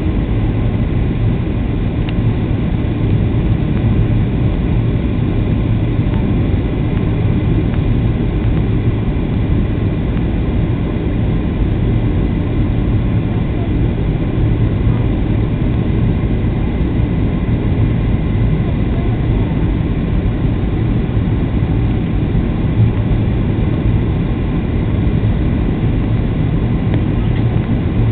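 Steady cabin noise of a Boeing 737-700 on approach, heard from a window seat over the wing: a loud, even drone of its CFM56 turbofan engines and the airflow, flaps down, heaviest in the low end with a faint steady whine above.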